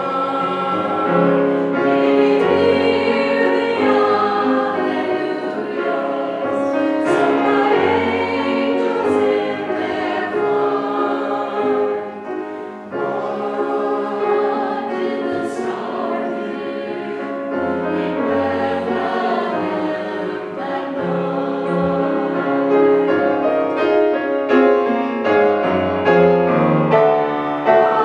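Small mixed choir of men's and women's voices singing together, holding notes and moving through changing chords.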